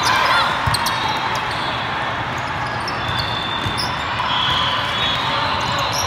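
Indoor volleyball rally: the ball being struck now and then over the steady din of a large, echoing sports hall full of other games and voices, with sneakers squeaking on the court.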